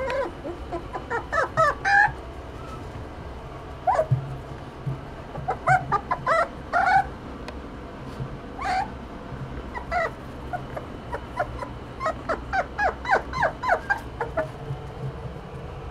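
Miniature dachshund puppy whimpering: short, high-pitched cries that rise and fall, coming in little runs every second or two, over a steady low hum.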